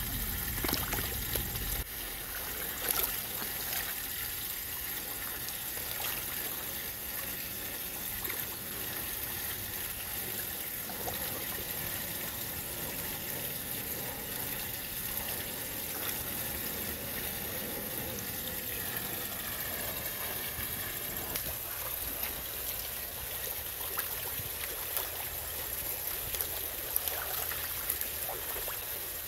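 Water trickling steadily in a koi pond, with occasional small splashes from koi feeding at the surface.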